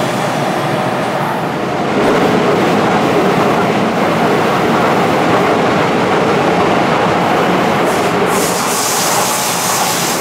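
Interior running noise of a Yokohama Municipal Subway Blue Line 4000 series train under way: a steady rumble of wheels and traction equipment that grows louder about two seconds in, with clicks from the rails near the end.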